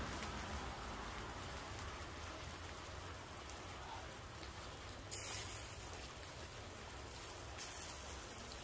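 Steady hiss of rain falling, briefly brighter and louder about halfway through, over a low rumble.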